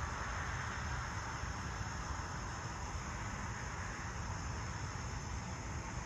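Steady rural outdoor ambience: insects chirping in a high steady band, with a low rumble and a car's tyre noise easing as it drives away.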